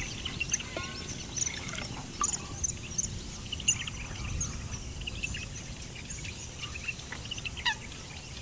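Small birds chirping, many short high calls scattered throughout, over a steady low background rumble.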